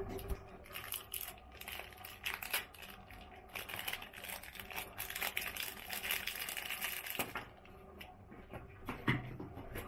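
Small clear plastic bag crinkling as it is handled and opened, in rapid, irregular crackles that die down after about seven seconds, then a single light knock.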